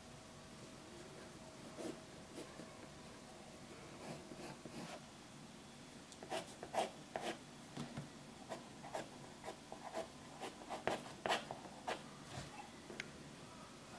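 Graphite pencil scratching on paper in hatching strokes: faint at first, then from about six seconds in a quick run of short, louder strokes as the shading is laid in.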